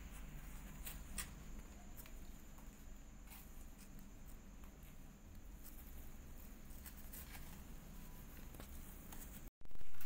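Low steady room hum with scattered soft clicks and rustles. Near the end the sound cuts out for a moment, then a louder sound starts suddenly and fades away.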